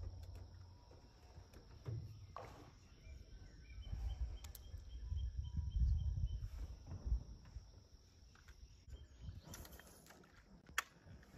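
Outdoor lake ambience: low rumbling from handling and movement in a jon boat, a steady high-pitched hum, and a bird giving a quick series of chirps a few seconds in. One sharp click comes near the end.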